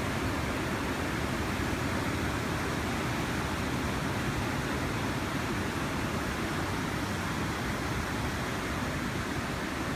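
Small waterfall and rapids rushing over rocks: a steady, unbroken rushing noise.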